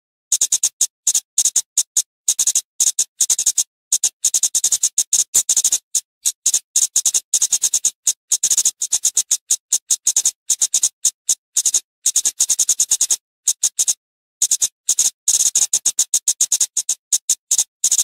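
Flowerpecker (burung cabai) calling: a rapid run of sharp, high-pitched ticking notes, several a second, broken by short pauses.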